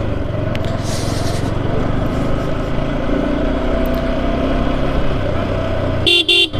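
Motorcycle engine and road noise running steadily while riding, then a vehicle horn beeping twice in quick succession near the end.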